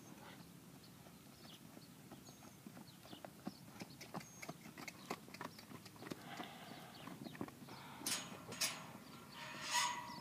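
A mustang mare's hooves beating on the soft dirt of a round pen as she trots and canters around the rail, a run of irregular knocks. Near the end come three louder, sharp rushing sounds.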